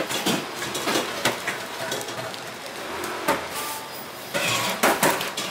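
Baking paper rustling and crinkling as it is peeled off a large sponge cake, with several sharp knocks and clatter scattered through, the busiest stretch about four to five seconds in.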